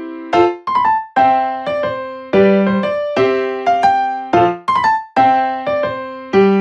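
Background music: a gentle piano or electric-piano tune, single struck notes and chords in a steady pulse, each note ringing and fading.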